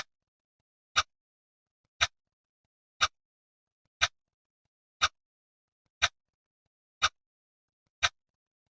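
Clock ticking at an even one tick per second, each tick a short sharp click with silence between.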